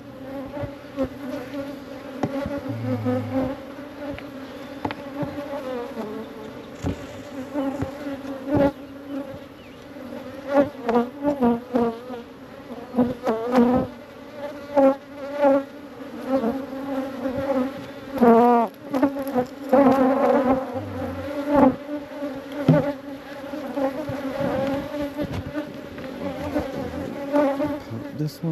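Honeybee colony buzzing steadily around an opened hive. Now and then a single bee flies close past with a rising and falling hum, and there are occasional knocks from the wooden hive boxes and frames being handled.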